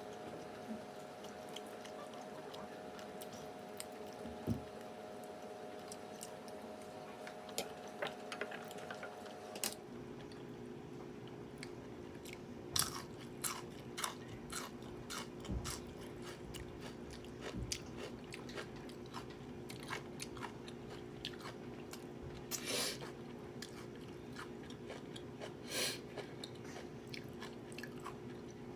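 Close-miked chewing and biting of food, with wet mouth clicks and a few louder crunches, over a steady background hum.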